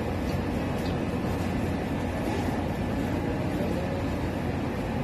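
Steady low rumble of busy-street background noise, even throughout with no distinct events.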